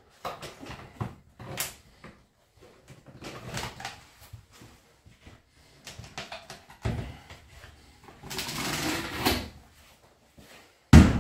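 Handling noises as a rolled pork belly is pushed through a plastic netting tube and the elastic meat net is drawn off over it: scattered rustles, scrapes and light knocks, a longer scraping rush about eight seconds in, and a sharp knock near the end.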